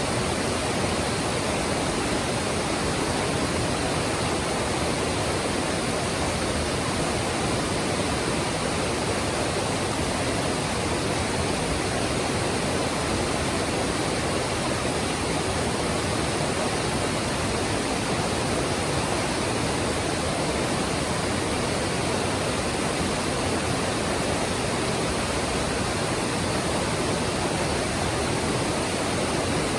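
Mountain stream rushing over rocks, a steady, even splashing of water.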